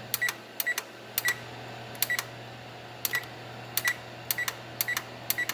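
Electronic oven control-panel keys being pressed to set a 10-minute bake, about nine presses, each a sharp click with a short beep.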